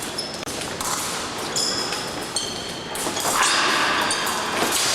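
Épée blades clashing in short metallic rings, mixed with thumps and taps of fencers' footwork on the piste; about three seconds in, a louder spread of hall noise comes in.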